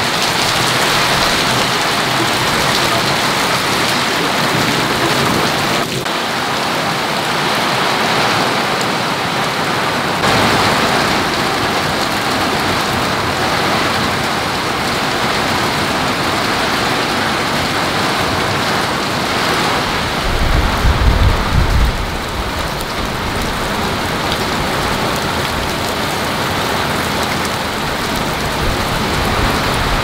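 Heavy storm rain pouring down steadily, drumming on paving and foliage. About two-thirds of the way through there is a brief low rumble.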